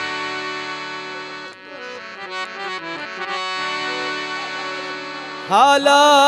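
Harmonium playing held chords, with a quicker run of short notes in the middle. A man's singing voice comes in near the end.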